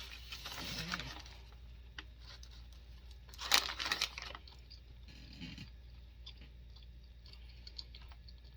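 A person taking a bite of food with a loud crunch about three and a half seconds in, followed by close-up chewing with many small wet mouth clicks.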